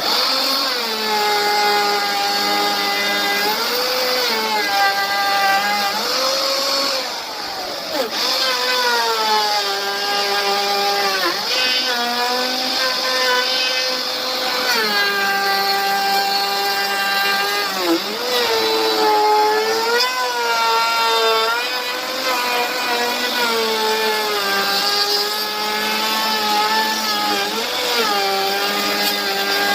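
Electric power tool motor running while cutting wood, its pitch sagging and recovering again and again as the cut loads it, with a few sharp dips.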